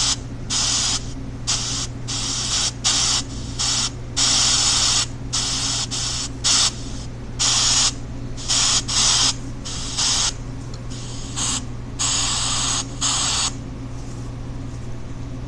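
Chopped pink noise from a phone app: bursts of hiss switching on and off irregularly, about one to two a second, some louder and some softer, stopping near the end. A steady low hum runs underneath.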